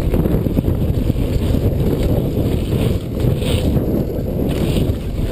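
Wind buffeting the microphone of a rider-worn camera on a mountain bike riding a dirt jump line, a continuous low rumble, with the tyres on the packed dirt adding short hissing swishes about once a second in the second half.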